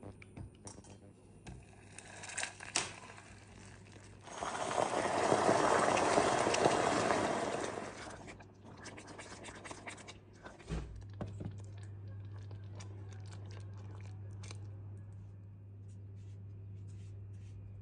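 Hot caramel in a steel pot hissing and bubbling up loudly for about four seconds as cream is stirred in, with a silicone spatula scraping and clicking against the pot before and after.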